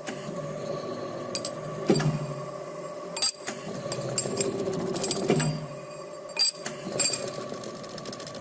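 Factory machine running with a steady hum, struck by about five sharp clanks at uneven intervals.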